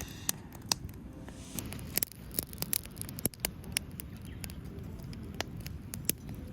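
Driftwood campfire crackling, with irregular sharp pops that come thickest a couple of seconds in, over a low steady rush.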